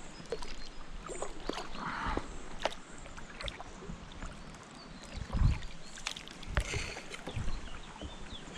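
Small knocks, taps and bumps on the plastic hull of a sit-on-top kayak, with light splashes of water as it is paddled quietly. A few low thumps in the second half are the loudest sounds.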